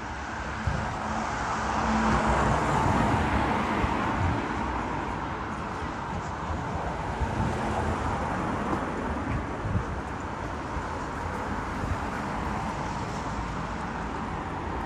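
Steady road traffic noise, louder for a couple of seconds early on as a vehicle passes.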